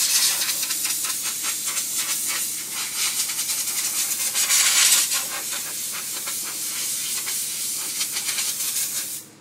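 Spray gun hissing steadily as it sprays the spray-chrome solution onto the part. The spray cuts off for a moment just before the end.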